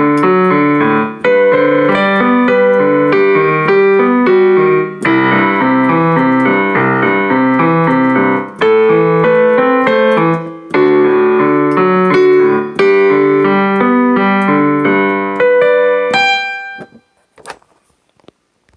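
Piano playing a simple melody over chords in an even rhythm. About sixteen seconds in, the playing stops on a last chord that rings and fades, followed by a few faint clicks.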